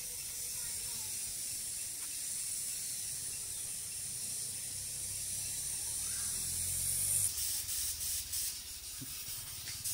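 A steady high hiss, then from about seven seconds in a run of short rasping strokes: sandpaper rubbed by hand over the painted steel fuel tank of a Bajaj Discover 125 motorcycle.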